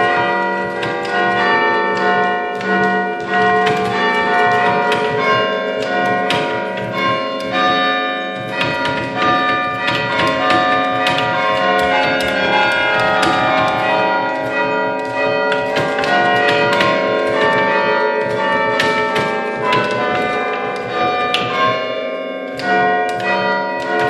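Church bells played by hand from a chime stand of wooden lever handles, striking a continuous tune. Each note starts with a sharp strike and rings on under the next ones.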